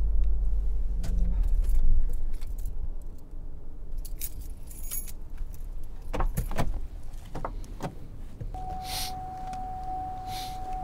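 A car's engine idling and then shutting off about two seconds in, followed by a bunch of keys jangling and clicking in hand. Near the end a steady single-pitch warning tone from the car comes on and holds.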